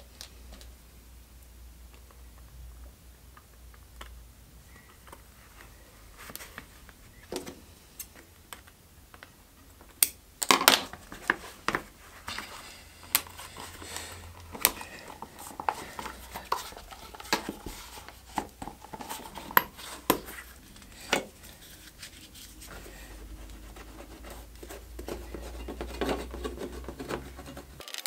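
Hands handling a leather sheath: leather rubbing and scratching, then a run of sharp, irregular clicks and taps from about ten seconds in, as the leather and its small fittings are pressed and worked.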